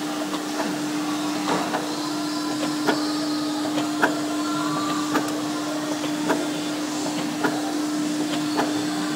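Arsoma SFD 3 punching unit running with a steady motor hum and a regular sharp knock about once a second as the punching heads cut holes in the printed web.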